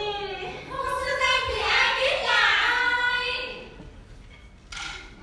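A woman singing a solo Chèo (Vietnamese traditional folk opera) melody in a high voice with bending, ornamented pitch, fading out about three and a half seconds in. A short sharp sound comes near the end.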